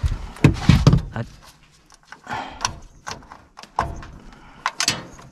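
A run of knocks, thunks and clicks from hands working inside a gas furnace cabinet around the inducer motor, with the heaviest knocks in the first second and a few sharp clicks near the end.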